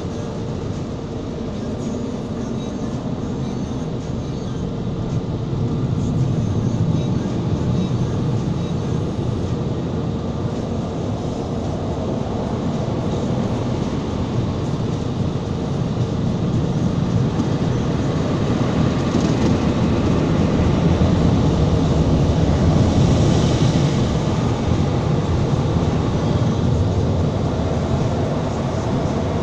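Automatic car wash running: a steady rumble of water spray and machinery that swells a little about six seconds in and again past the middle.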